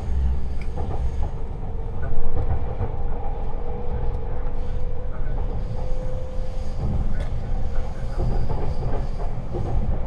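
Inside a 651 series limited-express train car while it runs: a steady low rumble with a faint whine that rises slightly in pitch over the first several seconds, and a few light knocks.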